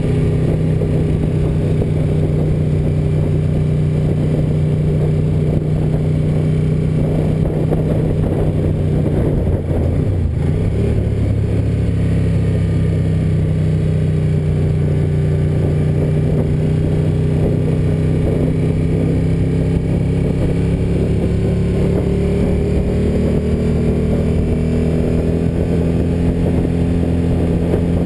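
Ducati 900FE's air-cooled V-twin engine running at cruising speed, heard from the rider's seat with wind and road noise. Its pitch dips briefly and recovers about ten seconds in, climbs slightly later on, and starts to fall right at the end.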